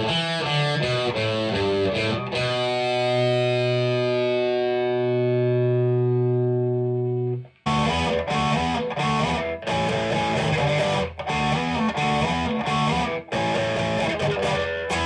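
Distorted electric guitar through a Marshall DSL1 amp on its Ultra Gain channel. First the Telecaster's stock Fender Vintera bridge single-coil plays a short riff, then held notes ring out for about five seconds. About seven and a half seconds in it cuts to the same guitar with both pickups, the Lindy Fralin high-output bridge and the Cunife Wide Range humbucker, playing a choppy, stop-start riff.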